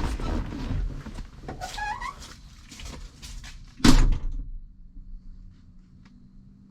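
Hand-work noises as a punch is used to line up the bolt holes of a steering wheel: metal scraping and rubbing, a short rising squeak about a second and a half in, and one sharp knock about four seconds in, the loudest sound.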